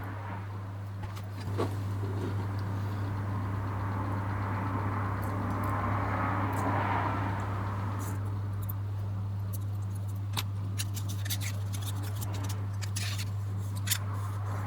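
Small clicks and scrapes of metal and plastic lens parts being handled, scattered irregularly over a steady low electrical hum, with a soft scratchy rustle that swells about halfway through.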